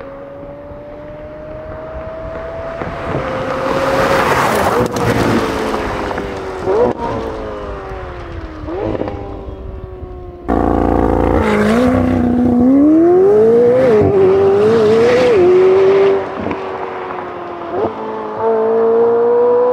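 McLaren 720S twin-turbo V8 through a Valvetronic Designs valved titanium exhaust on stock downpipes, driven: the engine note climbs, then breaks with several quick blips at gear changes. About halfway through it suddenly gets much louder as the engine pulls hard from low revs, the pitch climbing and wavering, with another gear change and rise near the end.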